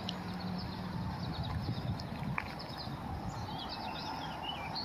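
Small birds chirping in short, high calls that come several times, over steady low background noise.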